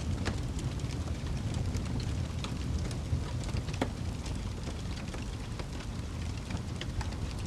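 Wood fire crackling in a fireplace: irregular sharp snaps and pops over a steady low rumble.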